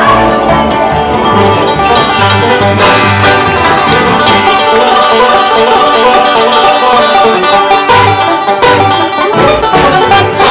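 Live bluegrass band playing an upbeat tune, with banjo and acoustic guitar picking over a steady bass beat.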